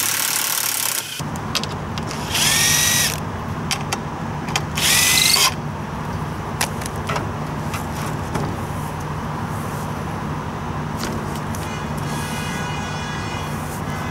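Cordless drill-driver backing out the screws that hold a light aircraft's tailplane: one run in the first second, then two short bursts about two and a half and five seconds in, each rising in pitch as the motor spins up. After that only a low steady background hum with a few faint clicks as the tailplane is handled.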